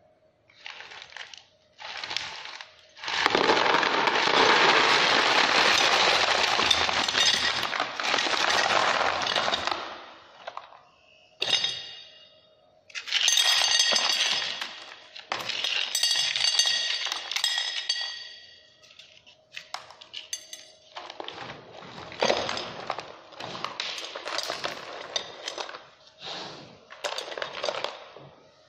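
A load of stones tipping out of a bait boat hopper and clattering into a plastic tray below in a long, loud rush, then a second rush with ringing clinks. Scattered clatters follow as the last stones are pushed out and the tray is handled.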